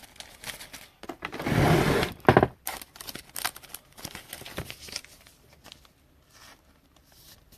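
Trading cards being handled: a rustling swish about a second and a half in, then a run of light clicks and taps that trail off.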